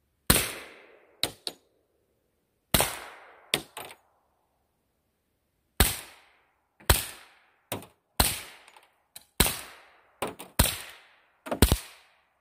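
A Glock 20 10mm pistol with a SilencerCo Hybrid 46 suppressor fires subsonic 200-grain full metal jacket rounds. There are about eight shots spaced one to three seconds apart, each with a fading echo, and smaller sharp cracks fall between some of them.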